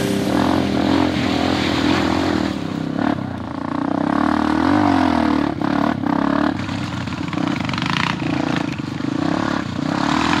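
Off-road motorcycle engine running while riding, its pitch rising and falling with the throttle, with a few sharp knocks and clatter along the way.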